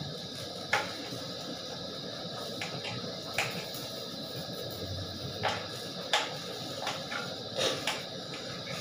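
Wooden spatula scraping and tapping a shallow metal frying pan as food is stirred, with a steady frying hiss underneath. Several short sharp scrapes come at irregular intervals.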